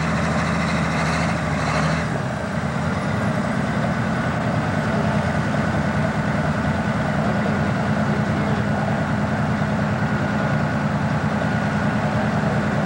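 John Deere pro stock pulling tractor's turbocharged diesel engine idling steadily at low revs, hitched and waiting at the start of a pull; some higher-pitched noise drops away about two seconds in.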